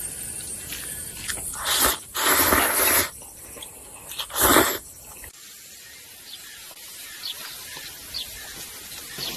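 Loud slurping of noodles in three hissing rushes: a short one near two seconds in, a longer one just after, and another about four and a half seconds in. Then a much quieter outdoor background with a few faint ticks.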